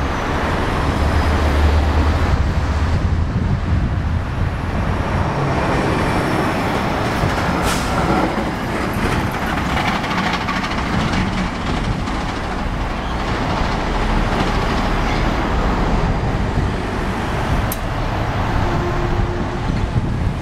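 Busy street traffic with trucks and cars passing: a steady mix of engine rumble and tyre noise, with a deep engine drone strongest in the first few seconds.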